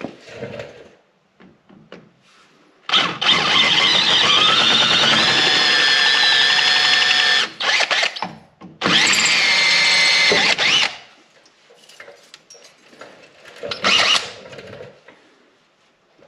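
Power drill drilling out a hole in a snowmobile's rear-suspension slide rail, in two runs: a long one of about four seconds whose whine rises in pitch as it gets up to speed, then a shorter one of about two seconds. A short knock follows near the end.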